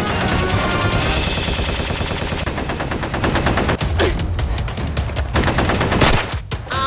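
Rapid machine-gun-style gunfire, a dense run of shots one after another, with a short loud burst of noise about six seconds in.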